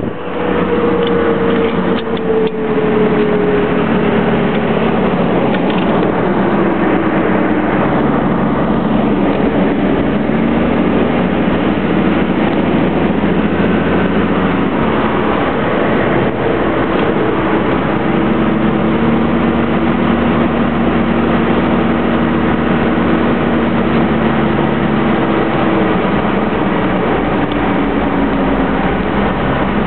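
Dodge W250's Cummins 5.9-litre straight-six turbo diesel pulling steadily uphill, heard from inside the cab as a steady drone. A whining tone slides lower over the first several seconds and then holds fairly steady.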